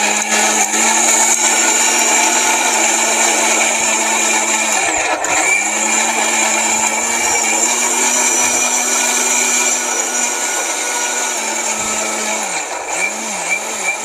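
Jaipan Fruttica mixer grinder running at full speed, its stainless-steel medium jar grinding chunks of ginger and garlic with a little water into a paste. The motor's pitch drops briefly twice and wavers near the end as the load shifts.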